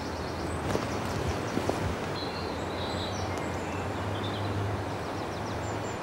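Outdoor ambience: a steady low hum and hiss with faint bird chirps, and a few light knocks in the first two seconds.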